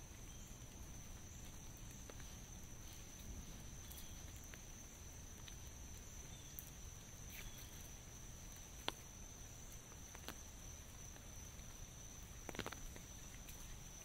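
Sparse raindrops tapping on an umbrella overhead: single taps here and there and a short cluster near the end. Under them run a faint, steady low rumble and a thin, steady high-pitched tone.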